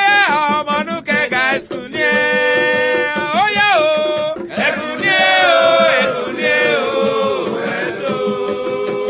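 Music with singing: voices holding long notes that slide up and down, chant-like.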